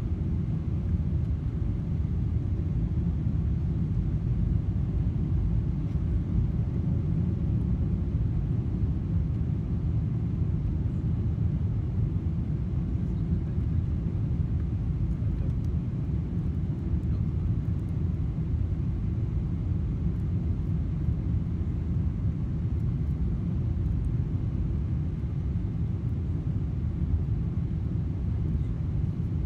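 Steady low rumble of engine and airflow noise inside a Boeing 777-300ER's economy cabin on final approach, with its GE90 engines at low approach power.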